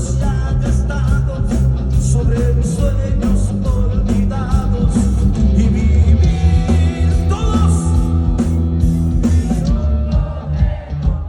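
Mexican rock band playing live, heard from the audience: heavy bass and drums with steady cymbal hits under a lead melody that bends in pitch, in an instrumental stretch between sung verses.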